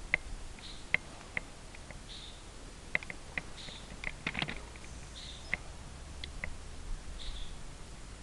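Scattered sharp clicks and snaps at uneven intervals, bunched together about four seconds in, with faint short chirps recurring about every second and a half.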